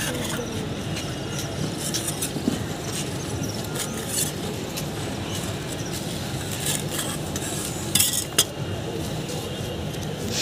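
Metal spatulas scraping across a stainless-steel ice-cream cold plate, pushing frozen ice cream into rolls, in short uneven strokes. There are a few sharp steel-on-steel clinks, loudest about 8 seconds in.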